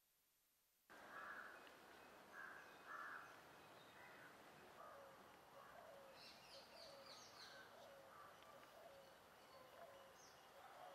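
Faint outdoor ambience of several birds calling, with many short chirps and calls at different pitches. It starts suddenly about a second in, after near silence.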